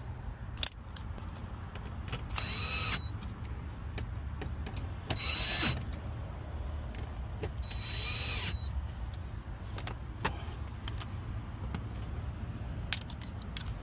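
Cordless drill/driver running in three short whirs, each under a second long with the pitch swinging as it drives and seats a screw, with a few sharp clicks between them.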